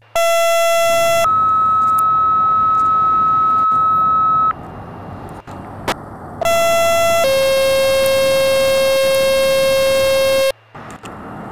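Radio dispatch two-tone sequential paging tones alerting units. The first page is a short tone of about a second followed by a long, higher tone of about three seconds. After a pause, the second page is the same short tone followed by a long, lower tone.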